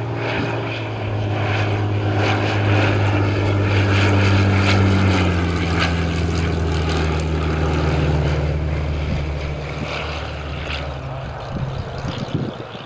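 Rolls-Royce Merlin V12 engine of a WWII propeller fighter running, its note dropping in pitch about five seconds in as it is throttled back, then fading away after about ten seconds. Wind gusts on the microphone near the end.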